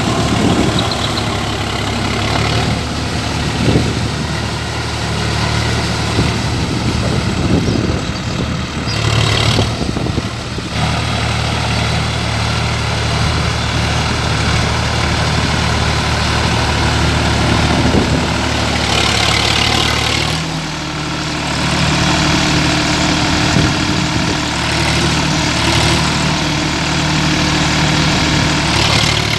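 Sonalika tractor's diesel engine running steadily, its pitch shifting about two-thirds of the way through.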